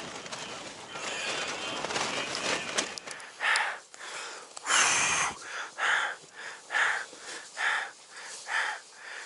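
Wind noise and rustling of down clothing, then rapid, regular breathing, about one breath a second, from a climber in a tent at 7,800 m altitude.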